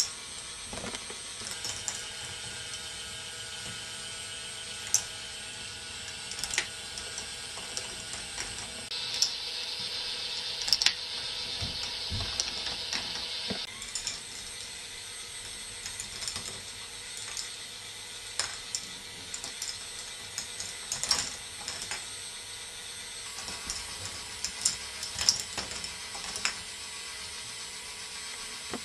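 K'Nex ball machine running: a steady hum from the lifts' motors and gearing, with scattered plastic clicks, knocks and clatters as balls run along the tracks. A brighter hiss rises over it for a few seconds about nine seconds in.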